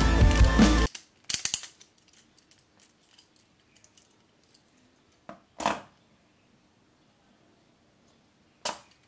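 Background music cuts off about a second in, followed by a few sharp clicks and knocks of the Beyblade's plastic parts being handled, the loudest near the middle and another pair near the end.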